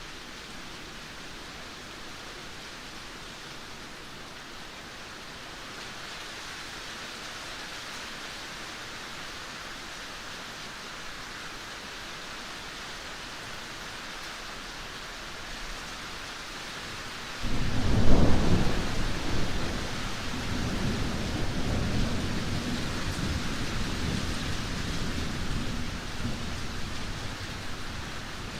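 Steady rainfall hissing, with a clap of thunder breaking in suddenly about two-thirds of the way through and rumbling on for several seconds before fading back under the rain.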